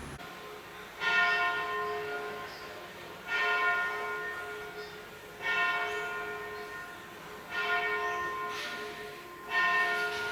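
A bell tolling five times, one strike about every two seconds, each stroke ringing on and fading before the next.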